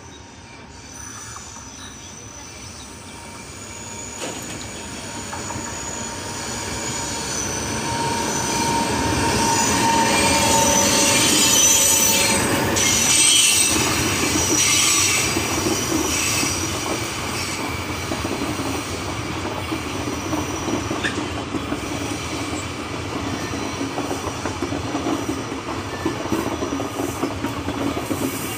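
WAP-7 electric locomotive hauling a passenger train past at speed: its sound builds from a distant rumble to its loudest about ten to fourteen seconds in, with high steady tones as the locomotive goes by, then the coaches roll past with a clickety-clack of wheels over the rail joints.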